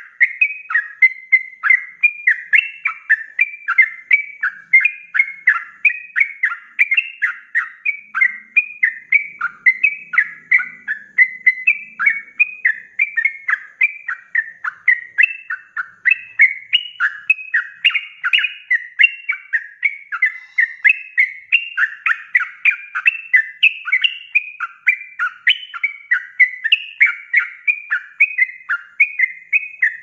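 Yellow-vented bulbul (trucukan) singing in the fast, unbroken 'ropel' style: a steady run of quick, rising and falling notes, about three to four a second, with no pauses.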